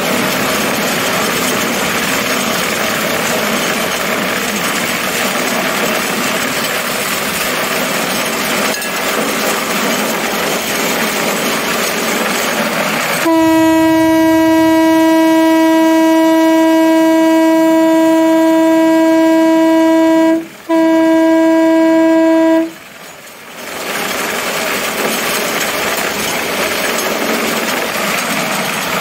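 A horn with one steady pitch blows one long blast of about seven seconds, then a short one of about two, over the steady running noise of a rail cart travelling on the track.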